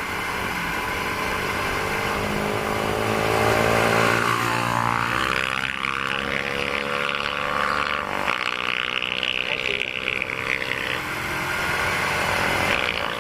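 Motorcycle engine running under way with wind rushing over a helmet-mounted camera's built-in microphone. The engine pitch dips and then climbs again about four to five seconds in.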